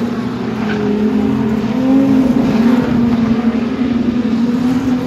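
Speedway sedan race car engines running hard at speed, the pitch rising and falling slightly with the throttle.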